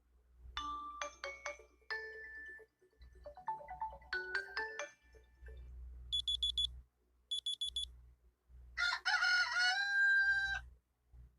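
Huawei phone alarm-tone previews played briefly one after another: a few chiming melodic notes, then another short tune, two bursts of rapid high electronic beeps, and a rooster-crow tone near the end, each one cut short.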